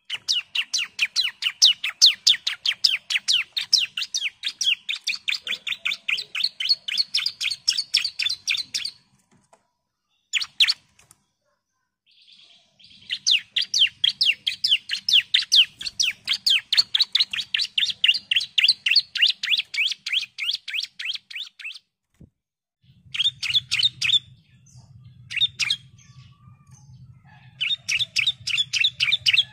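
Bar-winged prinia (ciblek) singing long runs of sharp, rapidly repeated chirping notes, about five a second, in several long bursts broken by short pauses.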